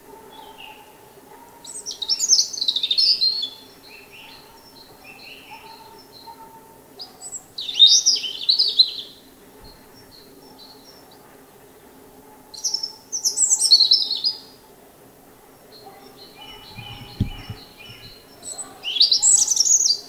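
European robin singing: four loud, high, warbling phrases of about two seconds each, separated by pauses of a few seconds, with fainter high bird notes in between.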